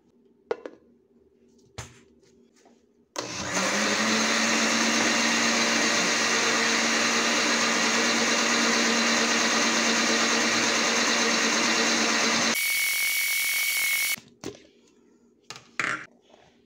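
Countertop blender running on a liquid cake batter: a few clicks, then the motor spins up about three seconds in and runs steadily for about nine seconds. Its sound changes briefly before it cuts off, followed by a few short knocks.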